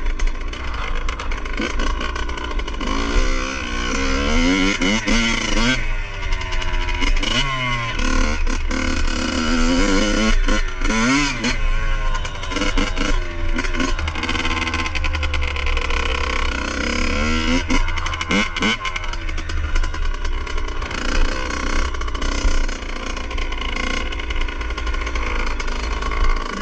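Dirt bike engine revving up and down repeatedly as it is ridden hard across rough grass, heard over a steady low rumble of wind on the helmet-camera microphone.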